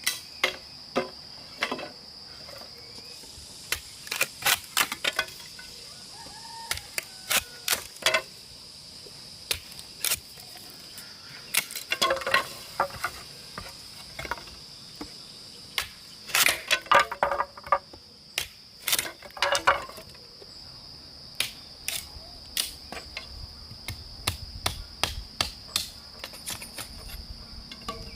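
Steady high trilling of insects, with a run of sharp knocks, some single and some in quick clusters; the knocks are the loudest sounds.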